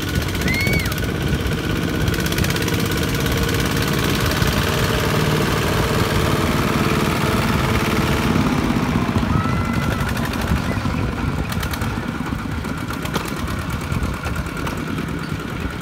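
Two-wheel walking tractor's single-cylinder diesel engine running hard under load, a fast steady chugging whose pitch rises and falls partway through.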